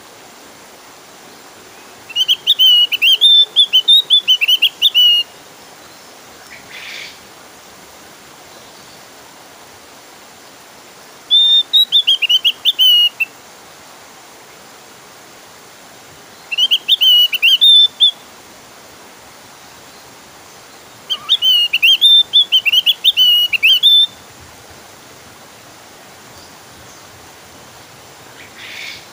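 Javan grey-throated white-eye (opior jawa) singing: four bouts of rapid, chattering whistled notes that jump up and down in pitch, each one to three seconds long, over a steady background hiss.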